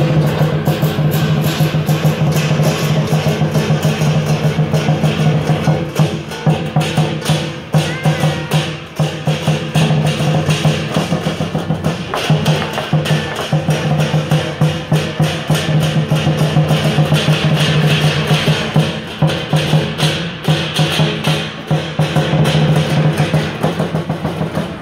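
Lion dance percussion: a large Chinese drum beaten in a fast, steady rhythm together with clashing cymbals and a gong.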